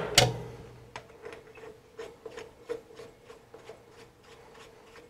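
Metal lathe cutting noise that fades out after a sharp knock in the first half second as the chuck stops. Then light metallic clicks and rubs, about four a second, from hand work at the threaded end of the part, over a faint steady hum.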